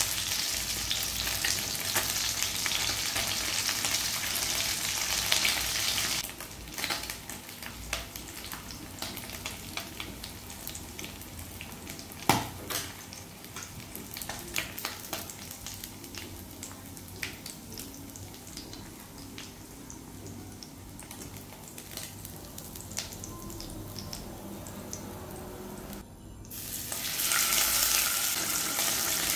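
Fish frying in hot oil in a pan, a steady sizzle with scattered crackles and pops. The sizzle is loudest for the first several seconds and again near the end, and a single sharp pop about twelve seconds in stands out above the rest.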